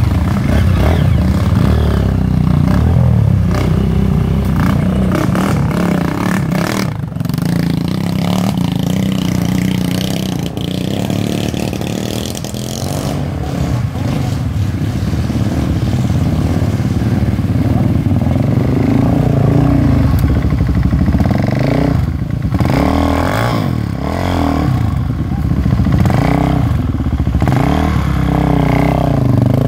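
Dirt bike engines running close by, their pitch rising and falling as the riders open and close the throttle climbing out of a river crossing. Near the end a Suzuki dirt bike is running right next to the microphone.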